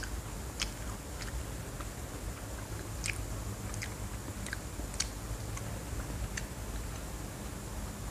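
Mouth chewing a crispy seaweed snack with the lips closed: scattered small crunches and clicks, over a low steady hum.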